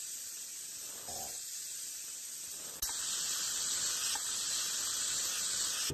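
Airbrush spraying paint, a steady hiss of air that steps louder with a faint click about three seconds in.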